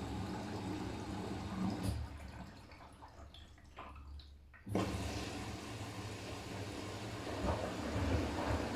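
Siemens iQ500 front-loading washing machine on its delicates/silk cycle, with water sloshing in the turning drum. The sound dies away about two seconds in and comes back abruptly just before the five-second mark.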